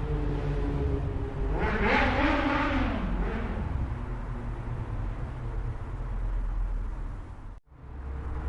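Motorcycle engine running steadily, revved once about two seconds in, its pitch rising and falling back within a second or so. Near the end the sound cuts out abruptly for a moment, then resumes.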